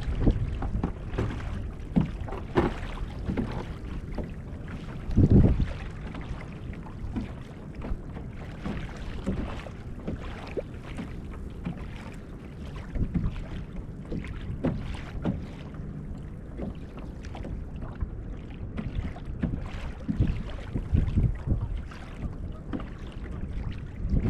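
Small waves lapping and slapping irregularly against the hull of a Hobie Outback kayak under sail, with wind buffeting the microphone. One louder thump comes about five seconds in.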